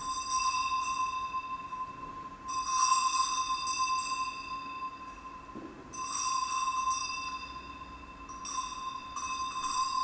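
A sustained bell-like ringing tone held on one pitch, with bright shimmering overtones. It swells louder several times, about half a second in, around three seconds in, around six seconds in and again near the end.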